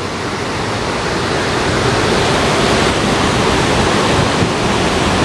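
Floodwater rushing over a shallow, stony riverbed, a loud, steady rush of white water.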